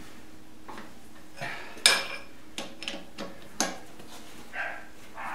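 Irregular sharp metal clinks and knocks of a steel T-handle key being cranked in the chuck of a milling machine's dividing head, clamping the work tight. About half a dozen clinks, the loudest about two seconds in.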